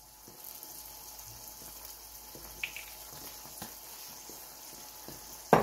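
Onions and bell peppers frying in a wok over medium heat: a faint, steady sizzle with a few small clicks. A sharp knock comes near the end.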